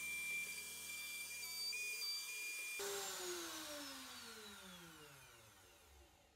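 Electric router mounted under a router table running at full speed with a steady high whine, then switched off about three seconds in and spinning down, its pitch falling steadily until it has almost stopped.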